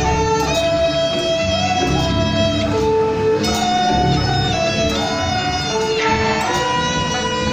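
Procession music: a melody of long held notes moving step by step over a busy low accompaniment.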